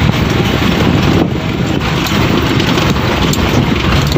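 Vehicle cabin noise: an engine running and tyres rumbling over a rough dirt lane, loud and steady, heard from inside the cab.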